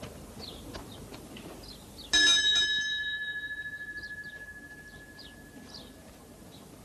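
A metal bell struck once about two seconds in, ringing with a pulsing tone that slowly fades over about four seconds. Faint bird chirps are heard throughout.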